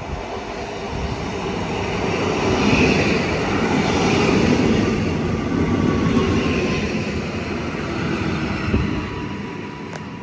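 EN57AP electric multiple unit running past along the platform: the rumble of its wheels and cars swells to a peak in the middle and fades as it pulls away. A faint whine dips in pitch midway and then holds, and a short knock sounds near the end.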